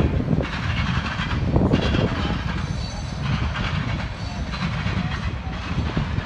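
A train rolling along the track: a steady rumble of wheels on rail with a few brief knocks.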